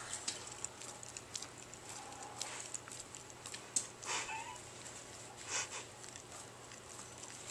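A dog making wet licking and mouth sounds with its tongue out, small clicks and smacks, with a few short breathy huffs.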